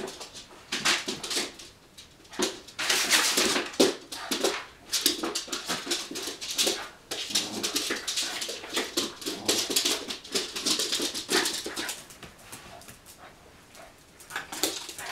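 Two Norwegian Lundehunds play-fighting, with a dense run of short dog vocalisations and scuffles. It eases off about twelve seconds in and picks up again briefly near the end.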